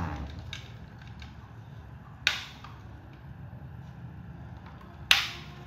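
Plastic toy military helicopter being handled: two sharp clicks about three seconds apart over a low steady hum.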